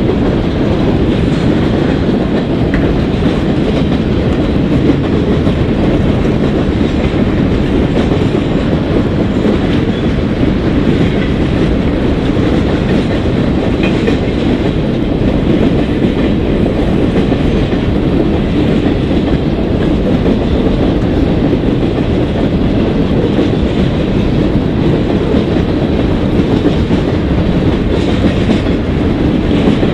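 Union Pacific mixed-freight manifest train's boxcars rolling past: a loud, steady rumble of steel wheels on rail.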